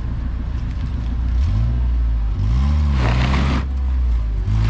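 Suzuki Jimny's engine revving under load as it tries to climb, driving on the rear wheels only because a drive shaft has snapped. The revs pick up about a second and a half in and swell and fall, with a short rush of noise around three seconds in.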